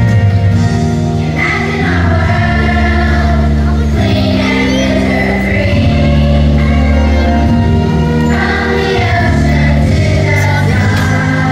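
A song with group, choir-like singing over sustained low bass notes that change every second or two.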